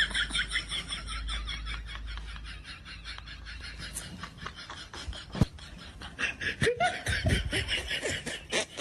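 Laughter: high-pitched giggling in quick, even bursts. It fades through the middle and picks up again near the end.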